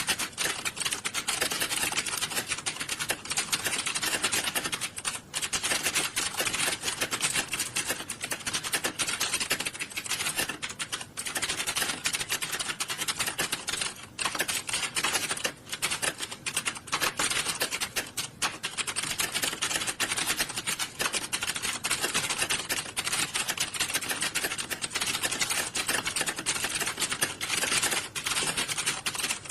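Dense, continuous clatter of many computer keyboards being typed on at once, the keystrokes running together into a steady rattle with only a few brief lulls.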